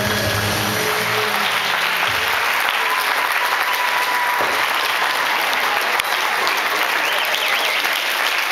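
Audience applauding, with the music's last held notes ending about two seconds in.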